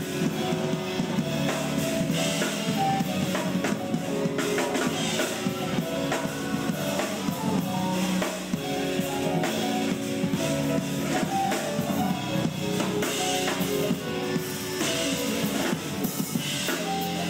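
Live band playing, led by a drum kit played fast and busy, with frequent cymbal and drum hits over held chords and bass notes.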